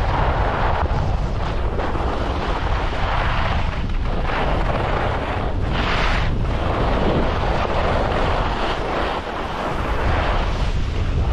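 Wind buffeting a GoPro HERO10's microphone during a fast ski run, a steady rumble, with swells of hiss from skis scraping across the snow through the turns, the loudest about six seconds in.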